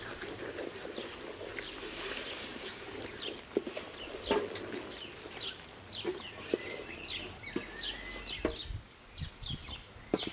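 A wooden spoon scrapes and churns a thick, grainy halwa mixture in a metal basin, with a few sharp knocks of the spoon against the basin. Small birds chirp repeatedly throughout, in short quick calls.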